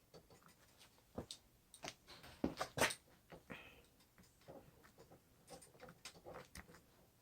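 Faint small clicks and knocks of hands working parts of an electric longboard drive wheel, with two louder knocks close together about two and a half seconds in and a brief scrape just after.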